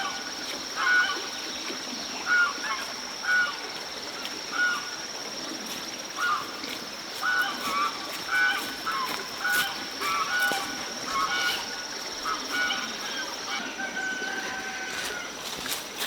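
An animal giving short honking calls over and over, about one a second, with a steady high-pitched whine underneath.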